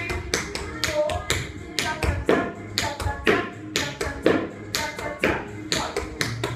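Tap shoes striking a wooden floor in a quick, uneven run of taps, several a second, as a tap dancer travels through a step sequence, over background music with a steady bass.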